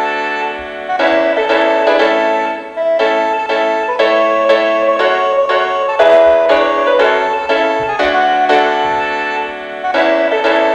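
Background music led by piano, notes struck in a regular pattern with changing chords.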